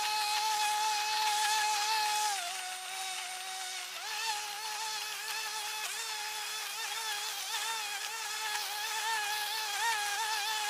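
Walk-behind petrol lawn mower engine running, sped up by the timelapse into a steady high whine. The pitch sags for a second or two about two and a half seconds in as the engine labours in the tall grass, then recovers.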